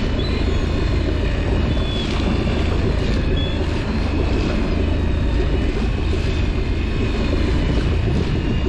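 Boat engine running steadily, a loud even low rumble, with a few faint short high squeaks over it.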